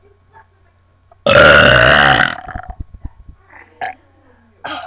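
One loud, long burp from a person, starting a little over a second in and lasting about a second.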